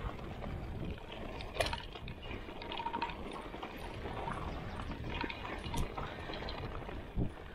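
Trek Roscoe 7 mountain bike rolling down a dirt trail: a steady rush of tyre noise, with a few sharp clicks and knocks from the bike.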